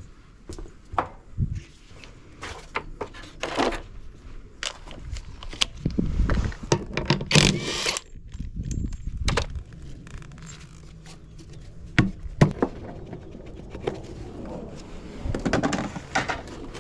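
Large bolts being undone from a washing machine's metal frame: a run of separate clanks and clicks from tool and metal parts, with a longer scraping stretch about six to eight seconds in.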